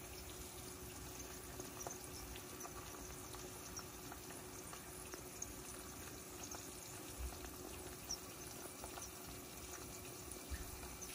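Hot oil sizzling faintly, with scattered small crackles, around a thin dough pie frying in a pan, over a faint steady hum.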